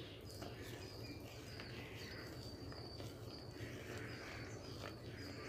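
Soft, faint stirring of thick fermented idli batter with a steel ladle in a steel pot. Behind it, a faint high chirp repeats about twice a second.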